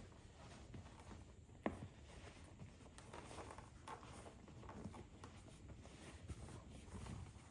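Faint rubbing and rustling of a leather seat cover being worked into place by hand, with one sharp click about one and a half seconds in.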